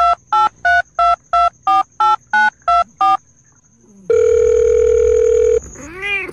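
Telephone keypad tones dialing eleven digits in quick succession, then one long ringback tone. Near the end comes a short rising-and-falling voice-like 'wei?', the Chinese phone greeting 'hello?'.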